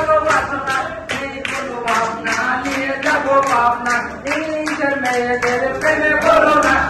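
A group of people clapping in a steady rhythm, about two and a half claps a second, along with voices singing.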